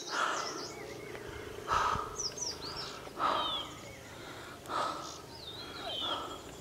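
Birds calling: a harsh call repeats five times, about every second and a half, over thin high chirps and whistles of small birds.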